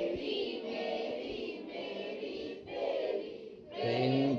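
A roomful of students singing a song together in unison, in short phrases that break about once a second. A louder man's voice comes in near the end.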